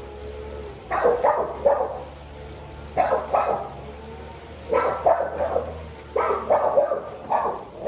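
A dog barking repeatedly, in short runs of two to four barks every second or two.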